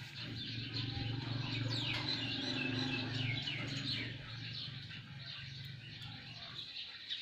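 Small birds chirping in quick, continuous short downward notes. A low steady hum joins from about half a second in and fades out about four seconds in.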